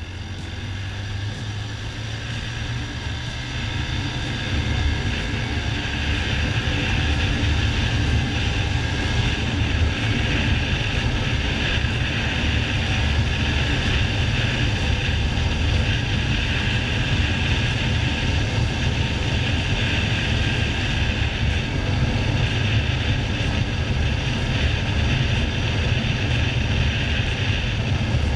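Suzuki GN 125's single-cylinder four-stroke engine running hard on the highway, pulling toward top speed: the sound rises over the first few seconds as it accelerates, then holds steady, mixed with heavy wind rush.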